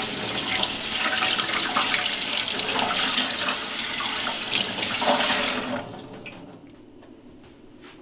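Kitchen tap running onto a slab of salt-cured pork belly held by hand in a stainless steel sink, splashing as the salt is rinsed off. The water stops suddenly about six seconds in, leaving only faint light handling sounds.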